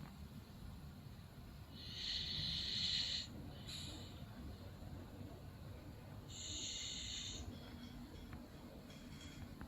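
Bulldog snoring in sleep: a low rattling breath throughout, with high wheezy hisses on two long breaths a few seconds apart.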